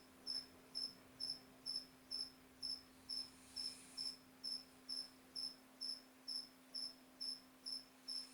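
A cricket chirping steadily, about two short high chirps a second, over a faint steady low hum.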